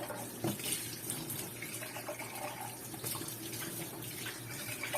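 Tap water running steadily as a baby bottle is rinsed under it.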